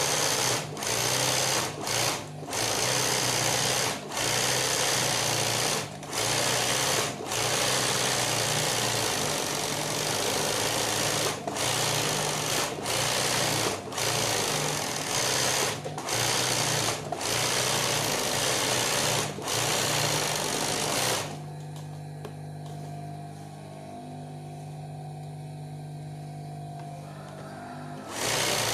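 Industrial sewing machine stitching free-motion embroidery in fast runs, broken by short pauses every second or two. About three-quarters through, the stitching stops for several seconds, leaving only a steady low hum from the running motor, then starts again near the end.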